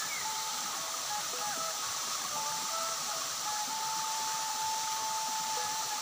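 Steady rushing of a tall waterfall falling down a rock cliff, with thin, held whistling tones over it, one longer than the others near the middle.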